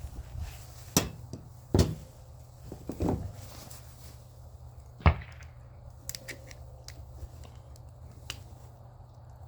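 Hand tools knocking on small electric-motor parts as the motor is taken apart for scrap: four sharp metal knocks in the first five seconds, then a few fainter clicks, over a low steady hum.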